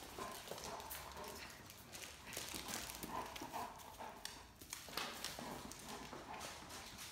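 Great Danes' claws clicking and scrabbling irregularly on a tile floor as an adult and a puppy tug and pull at a toy.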